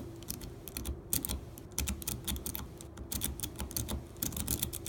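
A metal rake pick scraped rapidly in and out of a wafer cabinet lock under light tension, making a fast run of irregular sharp clicks and rattles as it hits the wafers.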